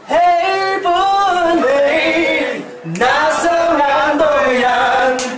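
A man singing loudly in two phrases of held, wavering notes, with a short break about halfway through.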